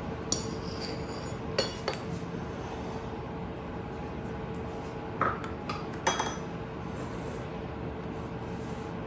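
Measuring cup clinking and tapping against a mixing bowl as flour is scooped and added: a handful of light clinks near the start, about two seconds in and around five to six seconds in, over a steady faint hum.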